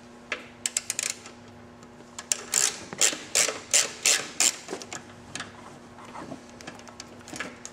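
Hand ratchet with a 6 mm Allen socket loosening a motorcycle seat bolt: a few quick clicks, then a run of ratcheting strokes about three a second, tapering to weaker, sparser clicks near the end.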